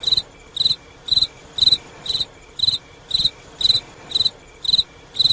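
Cricket chirping in a steady rhythm, about two short high chirps a second.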